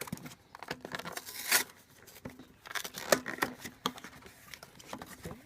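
Packaging of a sealed hockey card box being ripped open by hand: irregular bursts of tearing and crinkling with a few sharp clicks, the loudest rip about a second and a half in.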